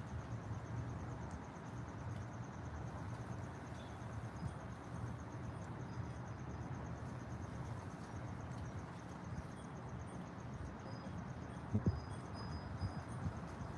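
Outdoor nature ambience: a steady, rapidly pulsing high insect trill over a low rumbling haze, with faint short high chirps from about four seconds in and a soft knock near the end.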